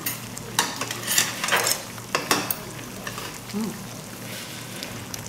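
A metal spoon and chopsticks click and clink against a ceramic bowl and the pot as pieces of braised chicken are served out, over the bubbling of a spicy chicken stew simmering on a tabletop burner. The clicks come in a quick run during the first couple of seconds.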